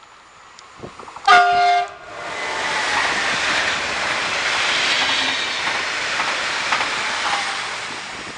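PKP Intercity ED160 electric multiple unit (Stadler FLIRT3) sounding its horn once, a short, loud chord about half a second long: the Rp1 'attention' warning signal. The train then passes close at speed with a steady loud rushing noise, fading slightly near the end.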